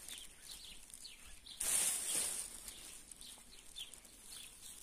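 Pine branches and needles rustling for under a second, about one and a half seconds in, as green pine cones are pulled from the tree. Small birds chirp repeatedly in the background, short falling notes.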